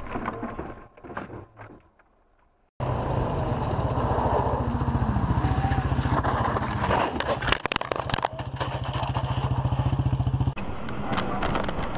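A vehicle's engine running steadily with an even low hum, with a cluster of sharp knocks and clatter in the middle. The sound cuts in and out abruptly as clips change.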